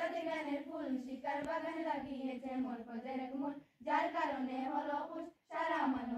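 A large group of schoolchildren singing together in unison, in long held phrases broken twice by short pauses for breath.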